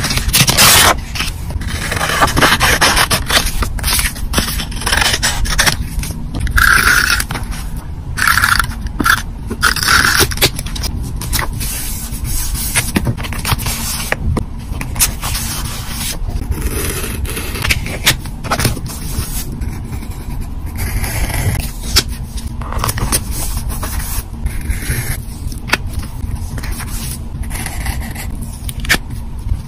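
Close-up paper sounds: a large paper sticker handled and pressed down onto a grid notebook page with the fingers, in a run of short scraping and crackling strokes. A pen then moves over a sticker sheet near the end.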